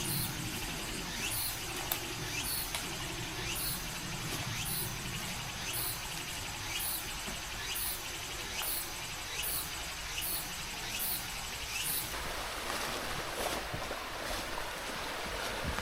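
Forest ambience with a high, faint chirp repeating about twice a second that stops about twelve seconds in, over a steady hiss and low rustling.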